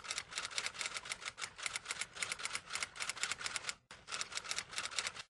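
Typing sound effect: rapid key clicks, about nine a second, with a brief break near four seconds in.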